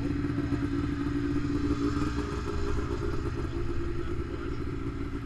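Snowmobile engines running steadily at low revs, with an even, unchanging hum.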